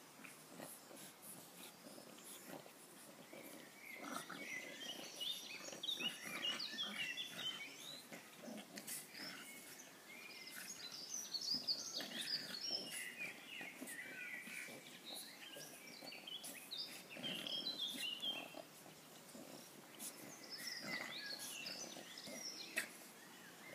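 Two dogs, one a French bulldog, growling and grunting in play as they wrestle. The noises come in uneven bursts that swell from about four seconds in.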